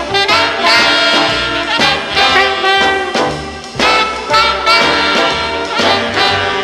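Recorded early-1960s Madison dance music in swing style, played by a brass-led dance band: horn phrases over a stepping bass line and a steady beat.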